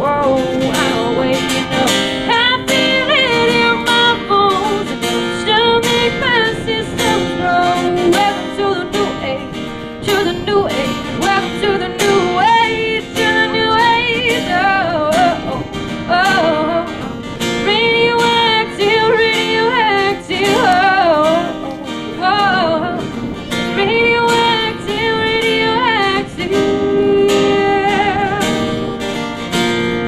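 A woman singing over a strummed acoustic guitar.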